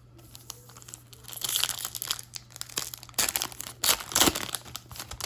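Baseball card pack wrappers crinkling as packs are torn open and handled, in irregular bursts, loudest about a second and a half in and again around three to four seconds in.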